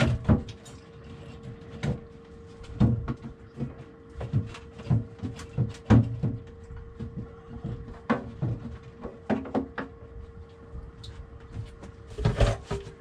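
Rubber mallet knocking on the old galley countertop to work it loose from its base: a series of irregular dull thuds, with a cluster of them near the end. A faint steady hum runs underneath.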